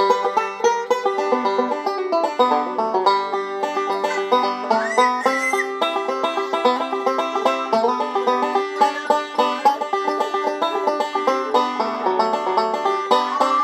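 Resonator banjo played solo in bluegrass style: a quick, continuous run of bright picked notes, with notes sliding upward about five seconds in.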